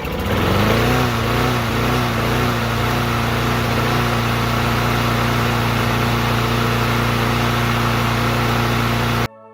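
A motor spins up in about a second and then runs at a steady high speed. It cuts off abruptly near the end.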